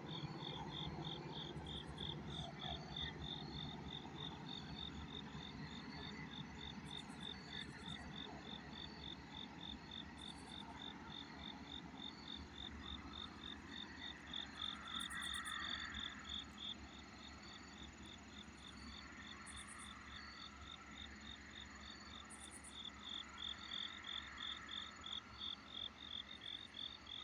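Night insects chirping in a steady, even rhythm of a few high chirps a second. A low rumble dies away over the first few seconds.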